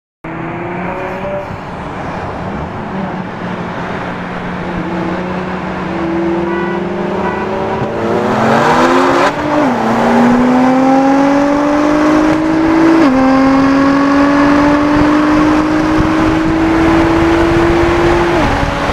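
Twin-turbo Nissan 370Z's V6 heard from inside the cabin. It runs steadily at cruise, then goes to full throttle about eight seconds in, the revs climbing fast. The pitch drops sharply at three upshifts, with longer rising pulls in the higher gears.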